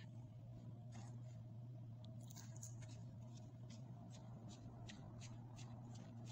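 A faint, steady low hum, joined about two seconds in by a run of light, quick ticks at about three or four a second.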